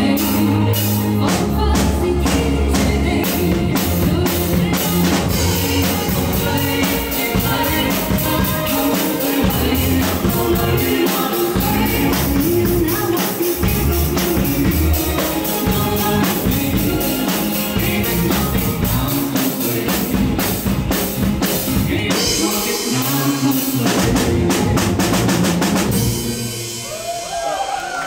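Tama drum kit played with sticks, snare, bass drum and cymbals, along with a recorded backing track that has singing in it. The music ends about two seconds before the end.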